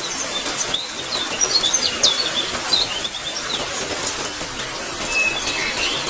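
Steady rain hiss with birds chirping over it: a flurry of short, high calls in the first half and a few more near the end.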